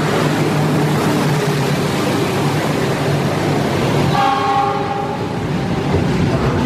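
Coal train hauled by a CC 206 diesel-electric locomotive passing at speed: the locomotive's engine runs with a steady low hum, then the loaded coal wagons rumble and clatter by. About four seconds in, a train horn sounds briefly.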